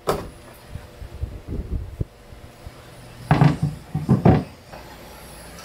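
Wooden knocks and clunks from a boat's control panel and its wooden helm console being handled, with the hinged panel lifted open. There is a sharp click at the start, a few soft knocks, and two louder bursts of clunking past the middle.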